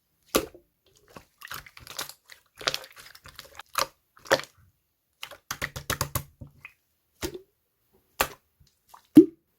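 Gold pearl slime being squeezed and folded by hand, giving irregular sharp clicks and small crackling pops, with one louder pop near the end.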